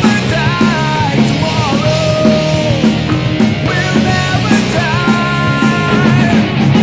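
Rock song playing as background music, with a steady drum-and-bass beat under a sliding, held lead melody.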